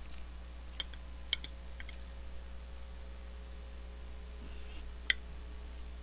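A metal spoon clinking against the food trays during eating: three light taps in the first two seconds and a sharper one about five seconds in, over a steady low hum.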